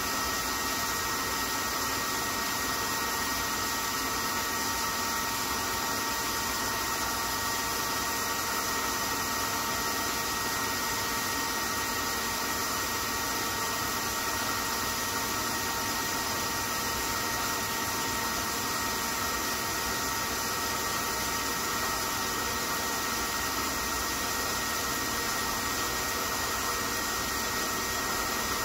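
Okuma LB35 II CNC lathe running a program with its turret carriage feeding slowly along the bed: a steady machine hum and hiss with several high, steady whining tones.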